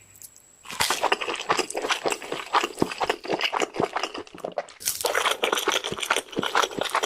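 Dense, rapid crunching and crackling, starting about half a second in and growing louder about five seconds in.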